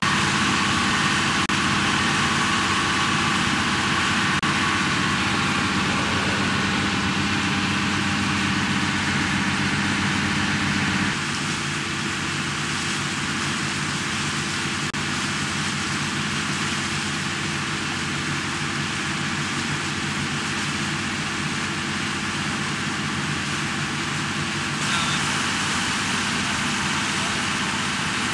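A tour boat's engine running steadily, a low drone of even tones under a constant rushing hiss of wind and water. The tone shifts and drops a little about eleven seconds in.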